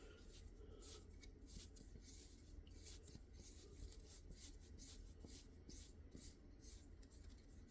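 Faint, irregular scratching and rubbing of an MGW sight pusher's screw being turned by hand to press a Glock rear sight out of its dovetail.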